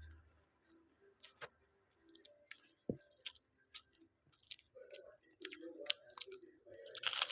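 Close-up eating sounds of someone chewing fried rice: scattered small clicks, with the chewing growing busier in the second half and a louder crunch near the end.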